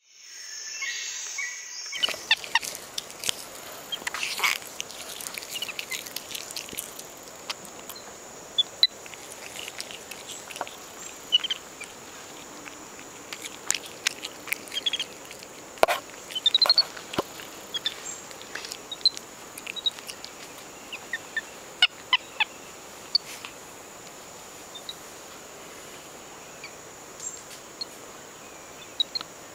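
Close-range clicks, knocks and rustles of a capuchin monkey handling the camera, with scattered short high chirps and a steady high whine behind them.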